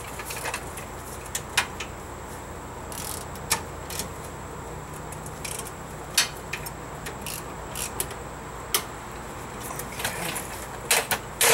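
Hand tools and steel brake hardware clinking and tapping irregularly during work on a rear disc brake assembly, with a louder double clank near the end.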